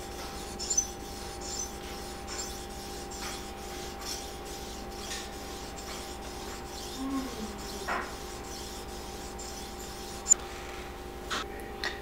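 Sharpening stone on an Edge Pro arm stroked along the steel edge of a poultry-shear blade, a faint rhythmic scraping of roughly one stroke a second. A single sharp click about ten seconds in.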